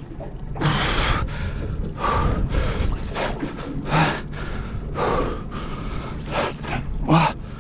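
A man breathing hard in quick, noisy puffs, about one every half second to a second, with a couple of short grunts. It is the heavy breathing of exertion while fighting a heavy fish on rod and reel. A steady low rumble of wind and boat runs underneath.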